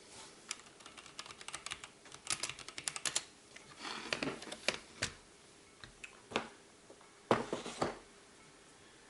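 Keys clicking on a wireless mechanical keyboard, typed in short irregular bursts with pauses between.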